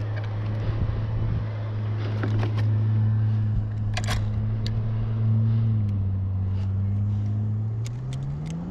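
An engine running with a steady low hum that dips slightly in pitch about six seconds in and rises again near the end. A few sharp clicks sound over it, one about four seconds in and several near the end.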